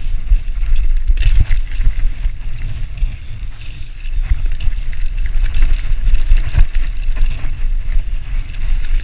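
Mountain bike riding fast down a dirt forest trail: a steady low rumble of wind buffeting the microphone and tyres on the dirt, with scattered knocks and rattles as the bike goes over bumps.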